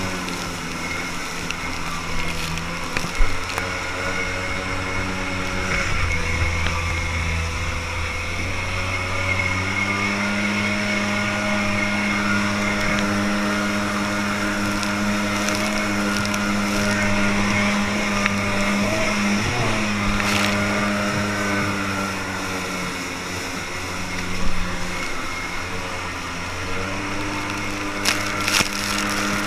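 Kawasaki Jetmate jet boat's two-stroke engine running under way, its pitch rising and falling several times as the throttle is worked, over the steady hiss of the jet's spray and rushing water. Two sharp knocks stand out, one about three seconds in and one near the end.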